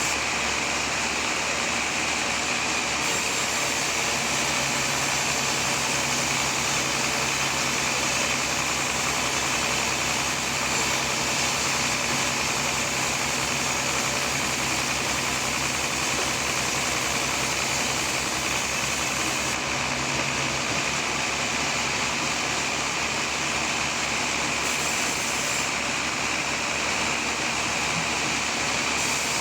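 Sawmill machinery running steadily: a continuous engine and saw noise at an even level. A low hum joins a few seconds in and drops away about two-thirds of the way through.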